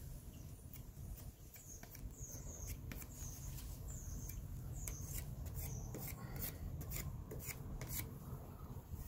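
Metal putty knife scraping and smoothing wood putty onto a wooden door frame: a run of short, quick scraping strokes, some with a thin squeak, over a low steady rumble.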